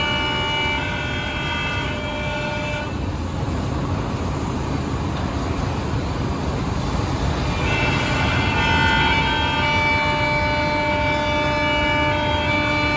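Spindle motor of a Woodmaster WM-2800-S2R4 CNC boring and milling machine running with a steady, high-pitched whine over a low machine rumble. The whine drops out about three seconds in and comes back about eight seconds in.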